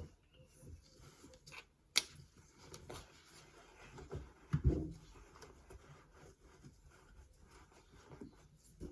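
Clicks and knocks of tools and parts being handled during work on a dishwasher, with a sharp click about two seconds in and a dull thump near the middle.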